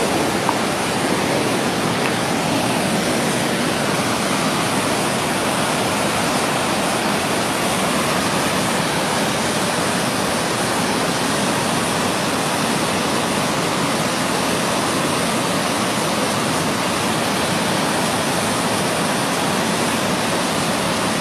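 Rushing whitewater of river rapids: a loud, steady roar of churning water over rocks.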